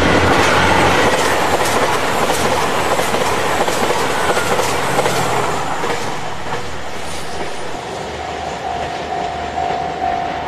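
Train passing, its wheels clicking rhythmically over rail joints, the sound dying away over the last few seconds.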